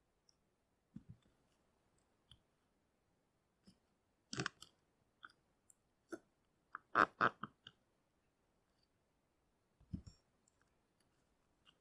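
Scattered clicks, taps and cracks of a hammer working loose a nailed wooden batten on a roof covered with roofing felt, the loudest knocks about four and seven seconds in, with a couple of dull thumps about one and ten seconds in.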